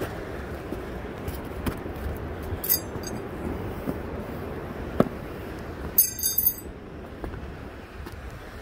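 Steady rushing noise with scattered light knocks, and two short metallic clinking jingles, one near three seconds in and a louder one about six seconds in.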